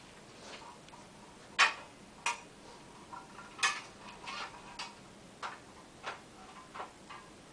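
Metal extrusion post sections clicking and knocking as they are handled and fitted together: about eight short, sharp taps at irregular spacing, the loudest about one and a half seconds in.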